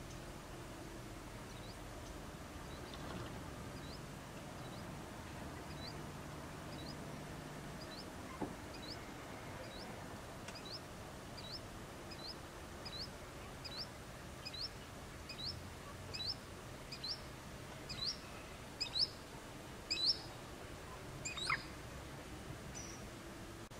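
A small bird calling: a long series of short, sharp upward-flicking notes, about one every two-thirds of a second, growing louder toward the end.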